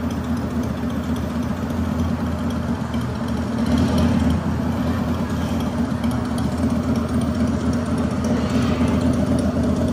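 Steady low engine-like rumble from the Hagrid's Magical Creatures Motorbike coaster vehicle, an idling motorbike engine sound that holds even and unchanging.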